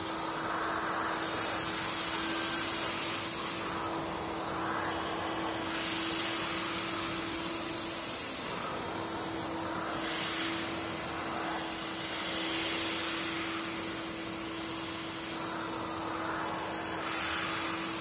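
Vacuum cleaner running steadily with a constant hum. Its suction hiss swells and fades every couple of seconds as the floor nozzle is drawn back and forth over rough concrete stair treads.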